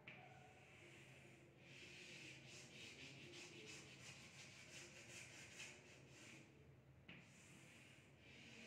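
Faint chalk scratching on a blackboard as a figure is drawn and shaded: a long run of quick back-and-forth strokes through the middle, then another stroke near the end.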